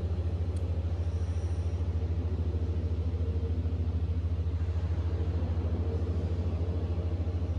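Low, steady droning hum with a fast, even throb of several pulses a second, played as the sound of an audio-visual art installation in a darkened exhibition hall.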